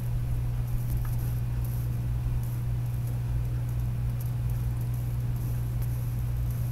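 Steady low hum with a faint hiss over it and a few faint high ticks.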